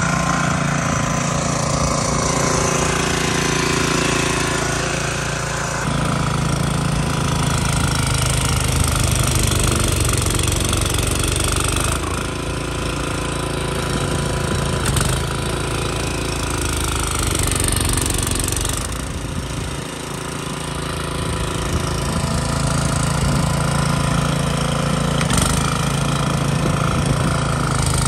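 Craftsman gas snowblower engine running steadily while clearing deep snow. Its sound shifts abruptly a few times.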